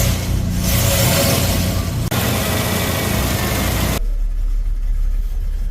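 Holden V8 engine of a 1979 VB Commodore held at raised revs, then dropping suddenly about four seconds in to a low, steady idle.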